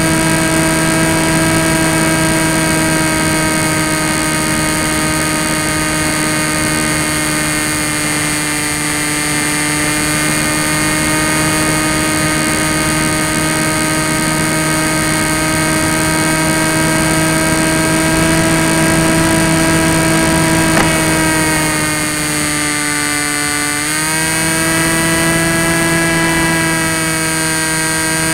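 Electric motor and propeller of a Tek Sumo foam flying wing, heard from its onboard camera, whining steadily in flight over a rush of air. Past the three-quarter mark the throttle eases and the pitch sags for a couple of seconds, then it picks back up and climbs a little near the end.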